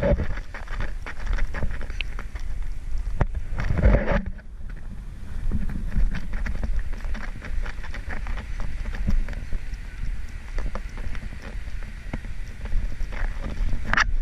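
Wind buffeting the camera microphone with a steady low rumble, over footsteps in soft sand a few times a second as the wearer walks through the dunes.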